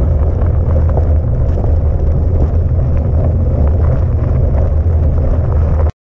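Wind buffeting the microphone of an action camera on a moving fat bike, a loud steady low rumble, with the fat tyres crunching over a gravel track and small rattles and clicks. It cuts off suddenly near the end.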